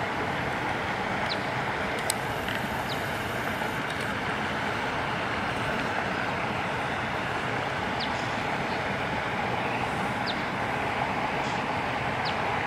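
Steady rush of flowing river water, with a few faint high ticks.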